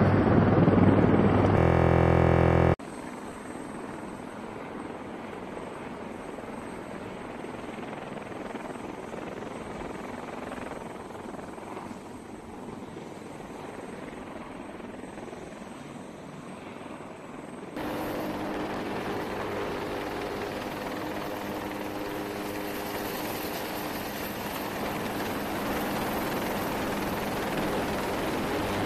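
AH-1Z Viper twin-engine attack helicopter in flight. Its rotor and engine noise is distant and steady at first, then steps up sharply about 18 seconds in, when a nearer helicopter flies low over the runway with a steady engine hum. The first couple of seconds hold a louder, rougher noise that cuts off suddenly.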